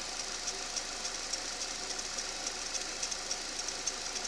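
Renault Duster's 2.0 F4R engine running at idle, with a faint steady rustle and light rapid ticking from the alternator drive belt and tensioner pulley. The owner traces the rustle to the belt itself, possibly stones embedded in it, since a new tensioner pulley bearing did not cure it and spraying water stops it.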